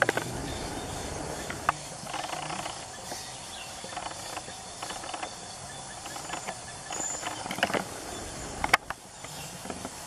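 Rustling and scattered light clicks of hands and bodies moving in grass and undergrowth while a bird is worked free of a net, with a short high whistle about seven seconds in.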